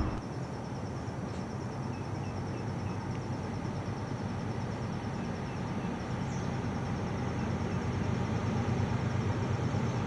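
Steady distant traffic rumble that slowly grows louder, with a few faint, high bird chirps in the first half.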